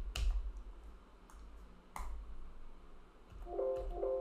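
A few sharp clicks near the start and one about two seconds in. Then, about three and a half seconds in, a short run of plucked-string music notes begins and rings on.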